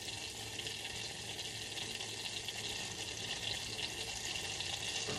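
Steady sizzling hiss from the stovetop, where butter is melting in a small pot on medium-low heat and a pancake cooks on the griddle, with faint crackles.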